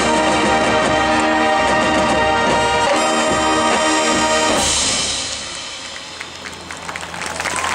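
Marching band brass holding a loud sustained chord that cuts off about four and a half seconds in. Crowd applause begins to build near the end.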